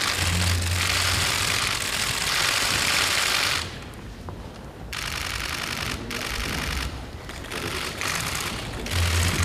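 Many press cameras' shutters clicking rapidly and overlapping, in a dense crackle for the first three and a half seconds, then in shorter bursts with brief gaps.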